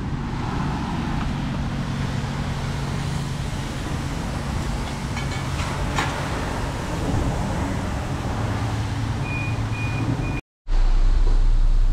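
A steady mechanical hum with a low drone. There is one sharp click about halfway, then three short high electronic beeps. Near the end a sudden cut gives way to a louder low rumble.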